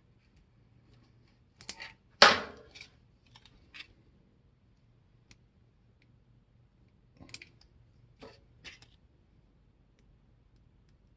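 Small parts and tools being handled at a workbench: scattered clicks and taps, with one louder knock about two seconds in.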